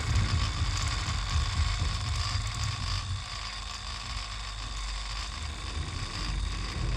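Quiet passage of improvised noise music: a low rumble fades over the first few seconds beneath a steady hiss with faint held tones and small clicks.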